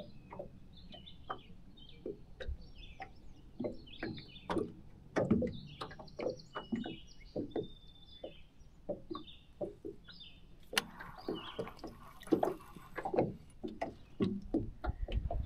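Small waves lapping and slapping irregularly against an aluminum boat hull in short, uneven knocks, with a few bird chirps.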